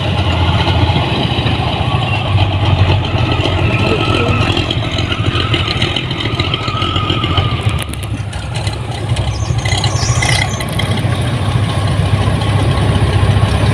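Rice combine harvester engine running steadily with a low hum, and a brief higher hiss about ten seconds in.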